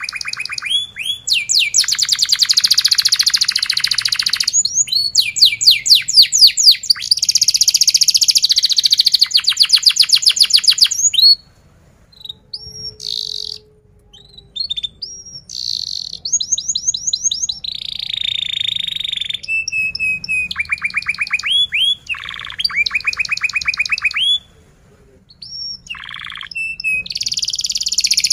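Domestic canary singing a long song of rapid repeated trills and rolling high notes, with two brief pauses, one about halfway through and one near the end.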